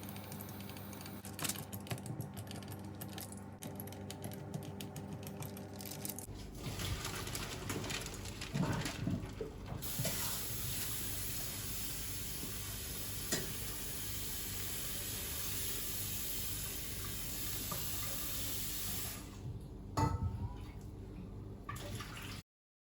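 Water running from a kitchen tap into a sink as a steady hiss for several seconds, with clinks of dishes and small knocks before and after it.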